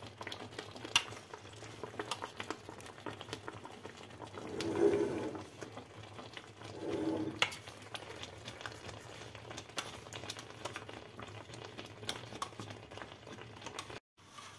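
Sugar syrup simmering around a slab of bread kadayıf in an enamel tray on the stove, a steady fine bubbling crackle, with a metal spoon now and then prodding and lifting the edge of the soaked bread. Two short louder sounds stand out about five and seven seconds in.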